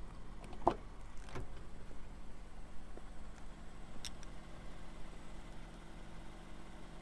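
A car's 3.5-litre V6 idling steadily, heard as a low even hum, with a few sharp clicks, the loudest a second in and one about four seconds in.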